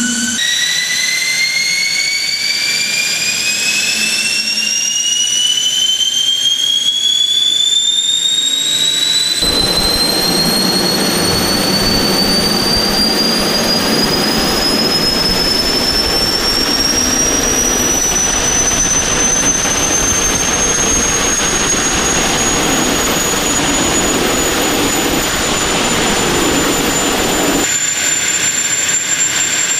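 Turbomachine TJ-1000 single-spool turbojet with a four-stage axial compressor, running loud. A high whine climbs steadily in pitch for about twenty seconds as the engine speeds up, then holds steady over a constant rushing roar. A deeper rumble comes in suddenly about a third of the way through and cuts off near the end.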